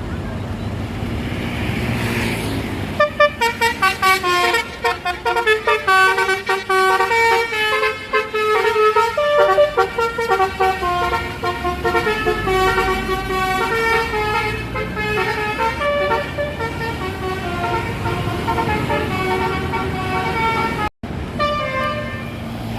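Bus telolet horn, a multi-tone air horn, playing a fast jingling melody that starts about three seconds in and runs until near the end, over the rumble of the bus engine.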